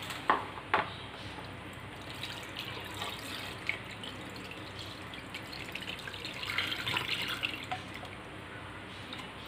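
Melted jaggery syrup poured from a metal pan through a plastic strainer into a steel pot of cooked broken wheat, trickling and dripping. The flow is busiest a little past the middle, with two sharp clicks near the start.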